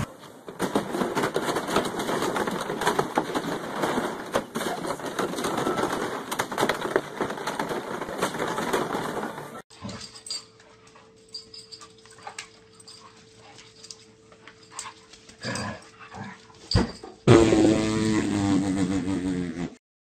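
Puppy sounds across a run of short clips: about ten seconds of busy splashing and scrabbling as a puppy plays in a plastic wading pool, then a quieter stretch with a steady hum and a few knocks, then a small white chihuahua puppy whining loudly before the sound cuts off abruptly.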